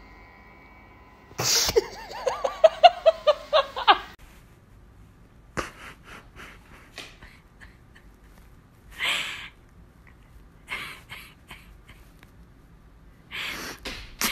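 A person bursting into high-pitched laughter, a quick string of short pulses lasting about two and a half seconds. Scattered clicks and scuffs and a short breathy hiss follow.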